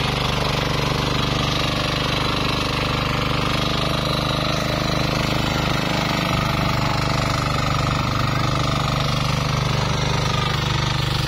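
Two-wheel walking tractor's small single-cylinder engine running steadily under load, with fast even pulses, as its wheels churn through a flooded rice paddy.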